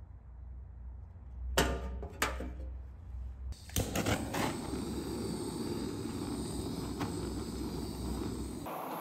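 Handheld gas torch being lit: a few sharp clicks, then about three and a half seconds in the flame catches and hisses steadily as it plays over the wooden handle.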